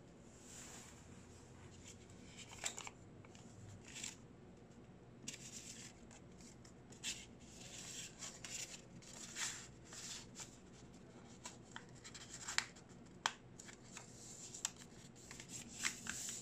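Origami paper rustling and crinkling as hands open a folded paper envelope, slip a folded banknote inside and press the flaps flat, with short irregular crackles and sharp little clicks throughout.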